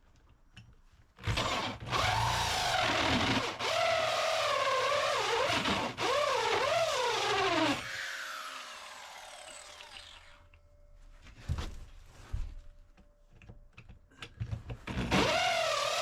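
Corded electric drill running under load, its whine wavering up and down in pitch as the bit bites. About eight seconds in it winds down with a falling pitch, a few knocks follow, and it starts up again near the end.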